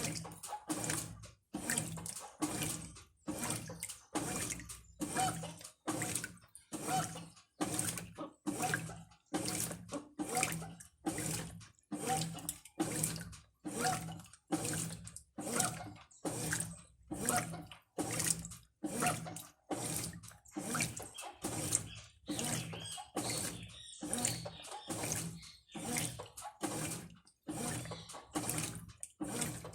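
Brastemp Ative 11 kg top-loading washing machine agitating a load: water sloshing in regular surges, about three every two seconds, as the agitator swings back and forth, with the motor's hum under each stroke.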